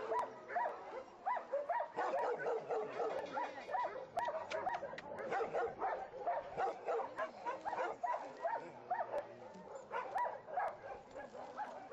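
Several dogs barking and yipping over one another in a dense, unbroken chorus of short calls.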